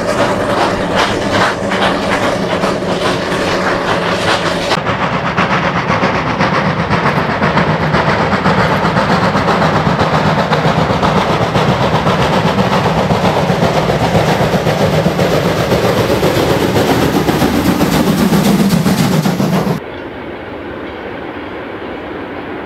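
Steam railway sounds in three scenes. First a steam rotary snowplow working through deep snow. About five seconds in, a German class 52 steam locomotive working hard as it approaches, the loudest part. About twenty seconds in, the sound drops suddenly to a quieter, duller distant steam train.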